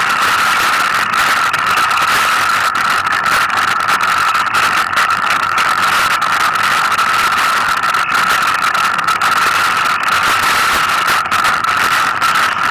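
Mountain bike ridden down a dirt forest trail, heard from a camera on the bike or rider: wind rushing over the microphone and tyre noise, with frequent knocks and rattles from the bike over bumps, and a steady high-pitched whine under it all.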